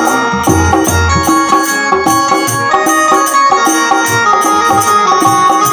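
Instrumental interlude of Indian devotional folk music: a melody instrument playing over a steady hand-drum rhythm.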